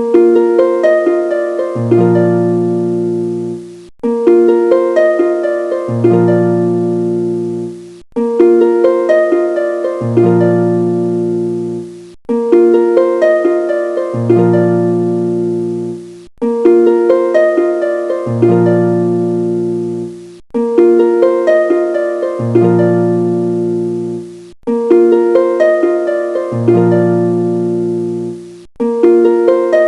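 Background music: a short plucked-string, harp-like phrase looping about every four seconds, with a low bass note coming in halfway through each loop.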